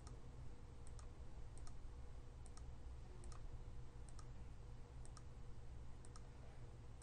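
Computer mouse button clicking about once a second while sketch line points are placed. Each click is a quick pair of ticks, press then release, over a faint low hum.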